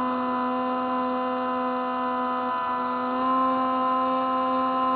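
Electric motor and propeller of a Spyhawk FPV foam RC plane in flight, a steady buzzing whine heard close up from the onboard camera. Pitch and loudness rise a little about three seconds in as the throttle comes up.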